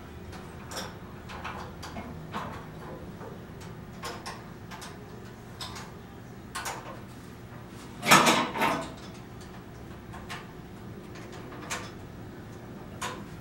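Clicks and clacks from a home-gym cable machine as its cable handles and attachments are handled, with a louder rattling clatter about eight seconds in. A steady low hum runs underneath.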